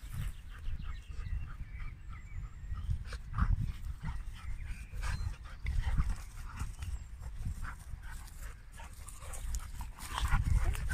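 A Vizsla and a Dobermann play-fighting up close: short, irregular noises from the dogs as they wrestle, in a run of bursts that are loudest about a third of the way in, around the middle, and again near the end.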